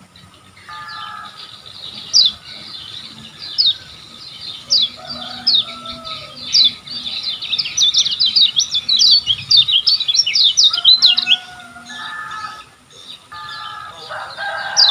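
Kecial kuning (yellow white-eye) singing a fast run of sharp, high chirps that packs tightly in the middle, with lower buzzy notes near the start and end.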